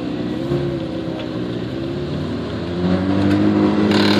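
Ferrari F40's twin-turbo V8 running at idle while parked, with the revs lifting slightly and the sound getting louder about three seconds in. A brief sharp noise comes just before the end.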